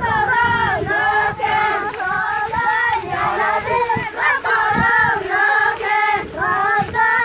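A group of children singing a chant together in short repeated phrases: a prayer for rain.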